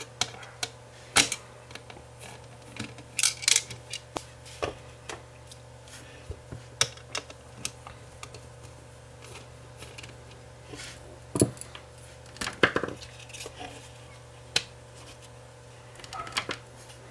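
Irregular clicks and taps of small screws being backed out of a Wi-Fi booster's circuit board with a screwdriver and set down on the workbench, along with the plastic housing being handled. A faint steady hum runs underneath.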